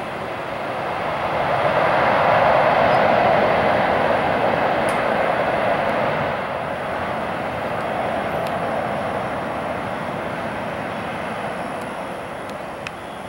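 Jet engine noise from a Boeing 767-300 freighter passing along the runway, swelling to its loudest two to four seconds in and then slowly fading.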